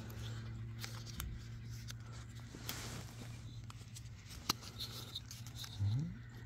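Faint clicks and rubbing of black plastic drip tubing being worked into a small plastic fitting by hand, with a few sharp ticks, over a steady low hum. A short rising hum sounds a little before the end.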